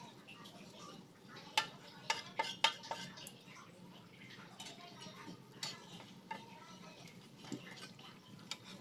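Metal tongs clinking and scraping against a small steel wok while turning bread rolls frying in oil, with a faint steady sizzle underneath. A quick run of sharp clinks comes about one and a half to three seconds in, and a few more follow later.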